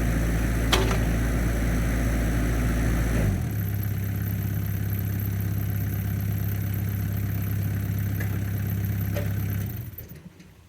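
Bobcat E26 mini excavator's diesel engine running steadily. About three seconds in, its note changes to a slightly quieter steady run, and near the end the engine shuts off and the sound dies away.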